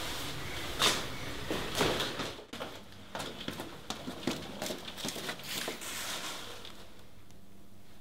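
Two sharp knocks about a second apart, then a run of soft, irregular taps: a man's footsteps and handling sounds on a hard floor in a small room, which die away over the last two seconds.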